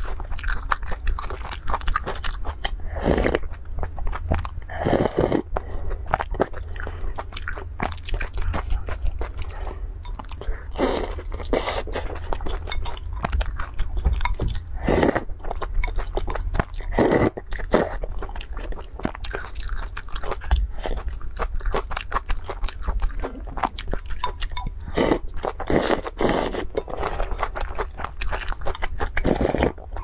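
Close-miked eating: chewing and crunching, with repeated slurps of noodles and soup broth several seconds apart and many quick sharp clicks throughout.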